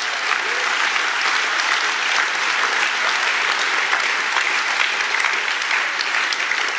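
Audience applauding, a dense, steady clapping from a large crowd.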